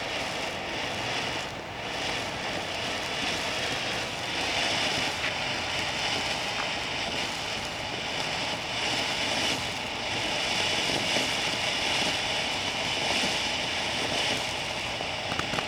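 Small consumer ground firework burning with a steady hiss as it sprays sparks.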